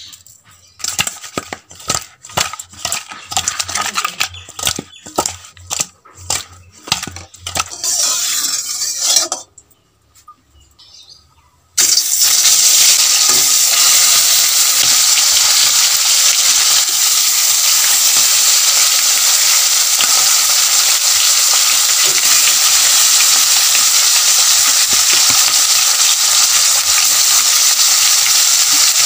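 Quick clinks and knocks against a steel bowl as salt and turmeric are spooned onto pieces of katla fish and mixed in, lasting about nine seconds. After a short pause, the katla pieces go into hot oil in a wok and fry with a loud, steady sizzle.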